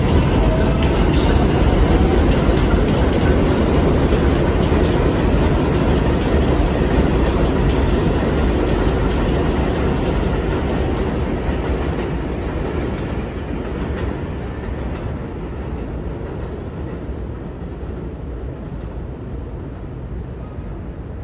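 New York City subway R142A train running away over the elevated steel track, with a loud rumble and wheel clatter and a thin wheel squeal near the start. The noise fades steadily over the second half as the train recedes.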